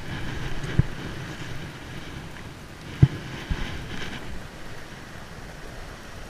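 Wind rushing over the microphone with a steady surf-like hiss, broken by a few dull knocks: one about a second in and a louder one about three seconds in, followed by a lighter one.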